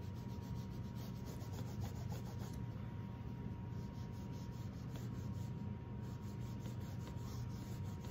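Cloth rag rubbing over a textured canvas, wiping the wet imprimatura stain away to lift out the light areas of the painting. Soft, steady rubbing.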